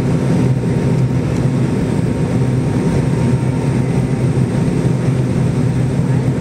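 Cabin noise inside a McDonnell Douglas MD-80 airliner in flight: the steady drone of its rear-mounted Pratt & Whitney JT8D engines, a low hum over rushing air.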